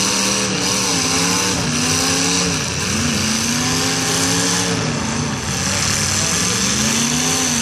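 Demolition derby car engines revving up and down, their pitch rising and falling again and again, over a steady background of arena noise.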